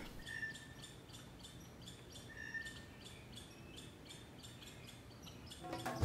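Faint outdoor nature ambience: a regular high chirping, about three chirps a second, with two short high whistles in the first half.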